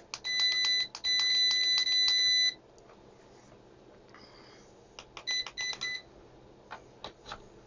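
A digital multimeter's buzzer beeping in a steady high tone, with one break, for about two seconds, among a string of sharp clicks. A few short beeps follow about five seconds in.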